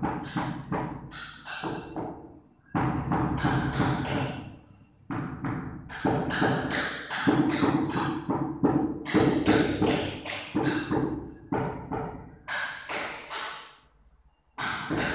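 Rubber mallet tapping large porcelain floor tiles, bedding them into the adhesive: rapid runs of taps broken by short pauses.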